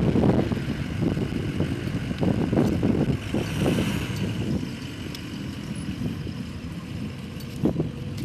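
A motor vehicle's engine running with an uneven low rumble that surges irregularly, louder for the first half and then settling lower. There is a short knock near the end.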